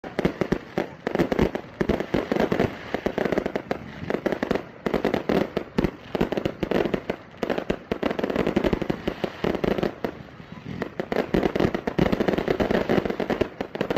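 Fireworks going off: a dense, irregular run of bangs and crackles in quick succession.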